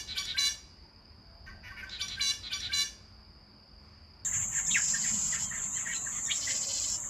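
Spangled drongo giving its metallic, twanging calls: two bursts of quick, ringing notes in the first three seconds, over a thin steady high insect whine. About four seconds in the recording changes to a loud, steady high insect drone with further faint bird chirps beneath it.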